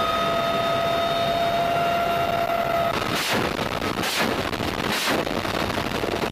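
GAU-17 six-barrel minigun firing several short bursts from about three seconds in, each a brief ripping blast, after a steady noise with a few held tones that cuts off abruptly.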